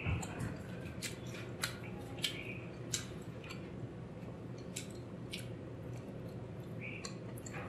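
Close-miked chewing of a mouthful of curry and rice: sharp, wet mouth clicks and lip smacks every half second to a second, with a short lull midway.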